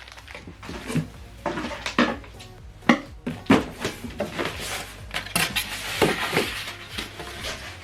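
Unboxing handling noises: irregular clicks, taps and rustles as packaged items are picked up and set down, over a low steady hum.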